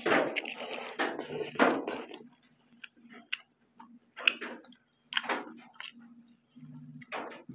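Two people biting into and chewing large pieces of bone-in beef held in their hands, with wet, open-mouthed smacking. The bites and tearing are loudest in the first two seconds, then give way to scattered short wet chewing clicks.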